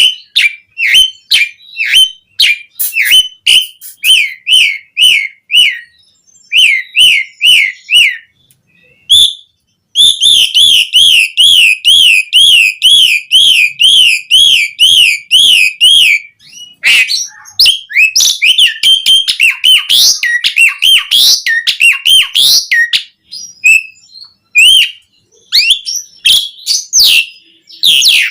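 Asian pied starling singing loudly: a series of short, separate whistled notes, then from about ten seconds in a fast, even run of repeated wavering notes lasting about six seconds, followed by jumbled, varied chattering phrases and scattered calls.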